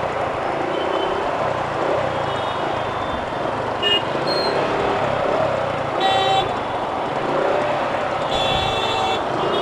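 Road traffic heard from a moving motorcycle: steady engine and road noise, with vehicle horns honking briefly about four seconds in, again around six seconds, and a longer honk near the end.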